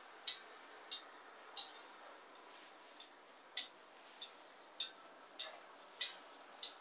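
A series of light, sharp clicks about every two-thirds of a second, pausing for about two seconds in the middle.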